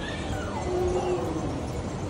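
A young child's voice calling out briefly, with a falling glide in pitch, over steady background noise.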